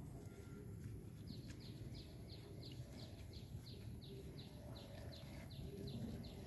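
A bird calling: a steady run of short, high notes, each falling in pitch, about three a second, starting about a second in, over a low background rumble.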